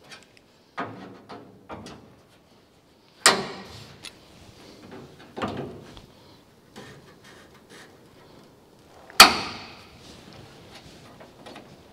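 Vice grips (locking pliers) handled and clamped onto the steel roof skin at the windscreen corners: a series of metallic clicks and clanks, the two loudest about three seconds in and about nine seconds in, each ringing briefly.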